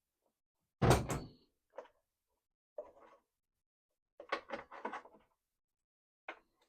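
Scattered knocks and clatters of parts and tools being handled while a deer feeder is taken apart. The loudest knock comes about a second in, and a quick run of knocks follows a little after four seconds.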